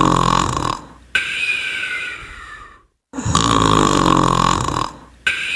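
Cartoon snoring sound effect, played twice: a loud rasping snore, then a high whistle that slides down in pitch on the breath out.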